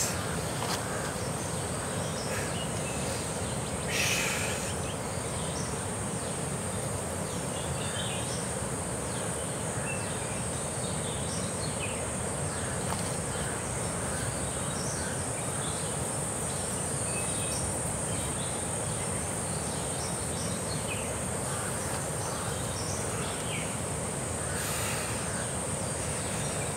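Outdoor ambience: a steady high-pitched insect drone, with scattered short chirps and a low steady background rumble. A brief louder sound stands out about four seconds in.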